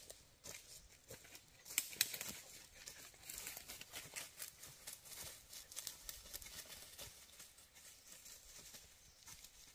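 Crisp crackling and rustling of dry leaf litter and twigs underfoot, an uneven run of small crunches that is loudest about two seconds in.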